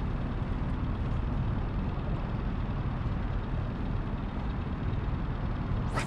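Wind buffeting the microphone: a steady low rumble with no clear engine note. A brief rising swish comes near the end.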